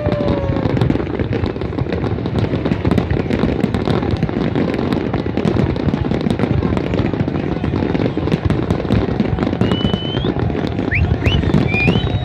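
Fireworks display: a dense, continuous barrage of bangs and crackles, with a few short rising whistles near the end.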